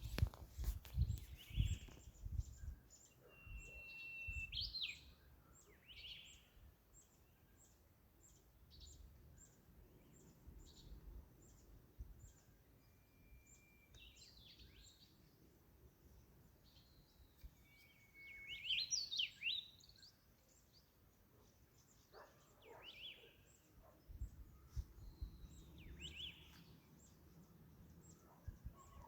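Birds calling: a few long held whistles, each ending in quick rising and falling notes, over a faint steady series of short high chips about two a second. Low rumbling comes and goes at times.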